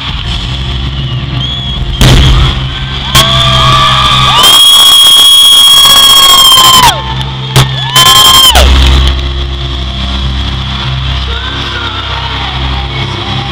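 Live band music in a large arena hall, with a steady bass line. From about two to nine seconds in, a loud, long, high-pitched voice holds notes that overload the recording.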